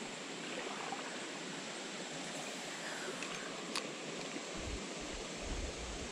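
Small creek's current running, a steady even water hiss.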